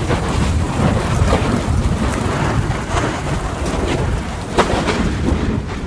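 Volcanic eruption with molten lava flowing: a steady deep rumble under dense crackling, with a few louder sharp cracks, the strongest near the end.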